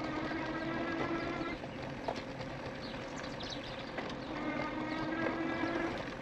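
E-bike's electric drive motor whining at one steady pitch in two spells of about two seconds, at the start and again from about four seconds in, over rolling tyre noise on a dirt trail with scattered light knocks and rattles from the bike.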